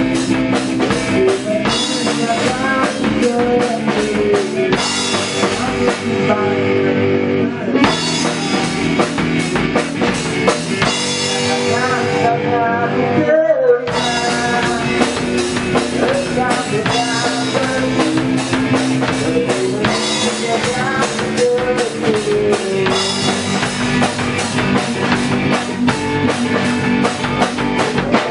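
Rock band music with a drum kit and guitar playing steadily, a short break in the sound about halfway through.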